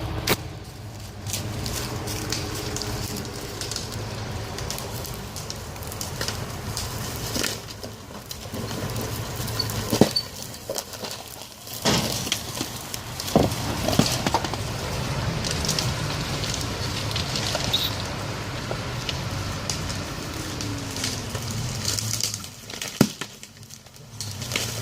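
Footsteps rustling and crackling through forest litter, with scattered sharp snaps.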